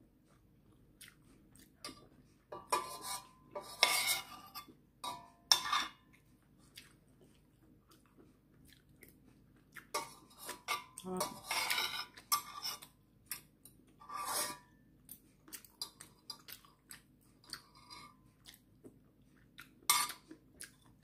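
Metal spoon and chopsticks clinking and scraping against a stainless steel pot in scattered clusters, some with a brief metallic ring, as noodles and seaweed are scooped out.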